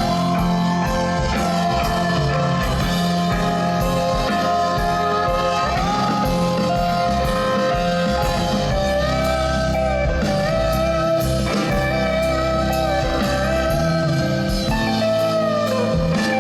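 Live band playing an instrumental passage: guitar with long notes that slide up and down in pitch, over a steady bass line.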